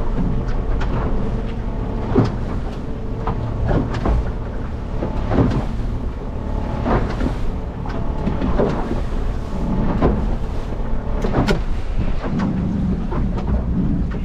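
Small boat's motor running steadily under wind and water noise, with irregular knocks and splashes about every second or two.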